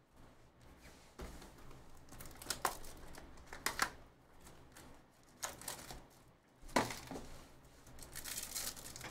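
2023 Bowman Chrome hobby box torn open and a sealed foil card pack pulled out and crinkled, in about five sharp, crackly rips spread through the few seconds.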